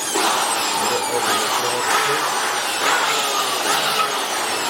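Makita electric blower running steadily, a loud rush of air with whistling tones that keep sliding down in pitch, as it blows dust out of a document scanner's interior.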